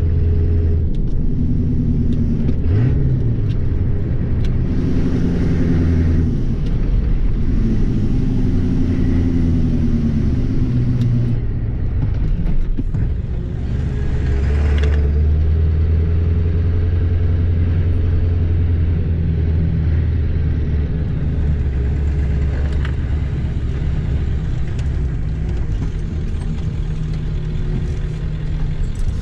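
Ford 7.3 Powerstroke turbo-diesel V8 pickup heard from inside the cab while driving, engine running over steady road noise. The engine pitch rises and falls through the first part as the truck speeds up and shifts, then settles into a steady low drone.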